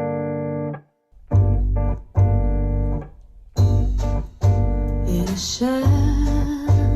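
A pop-rock song played back through hi-fi speakers and picked up by microphones. Stop-start keyboard chords are joined by a low bass about a second in, brighter cymbal hiss comes in about halfway, and a voice starts singing near the end.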